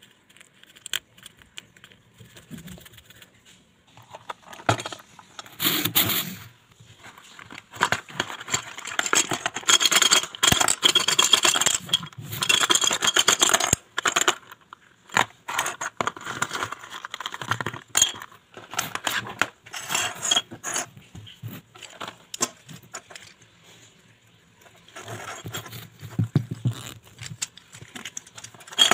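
Small plastic pencil sharpeners clattering as they are dropped and tipped onto a wooden tabletop: runs of sharp clicks and rattling that come and go, with the busiest stretches a third of the way in and again near the end.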